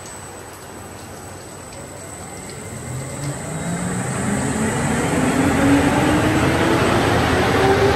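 WashBot Transformer 3XM in-bay car wash machine starting up: a motor whine that climbs steadily in pitch under a swelling rush of noise as the overhead wash head begins to rotate.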